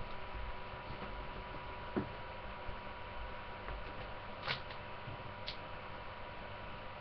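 Steady electrical hum and hiss from a webcam's microphone, with a few faint clicks about two, four and a half, and five and a half seconds in.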